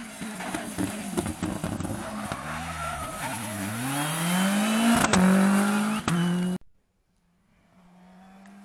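Suzuki Swift rally car passing through a corner: the engine revs drop as it slows, then climb steeply as it accelerates away, with two sharp cracks near the end of the pass. The sound cuts off suddenly, and a fainter rally car engine is then heard from a distance.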